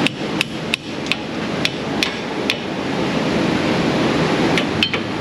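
Hammer blows on steel, a quick run of about seven sharp ringing strikes, then a pause and a few more near the end, knocking a seized, partly cut jam nut off a tie rod.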